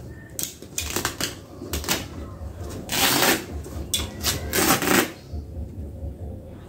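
A knife cutting and ripping through the stitching and striped cloth cover of a rain-soaked kapok mattress: a run of short snips and rips, with two longer tearing sounds about three and five seconds in.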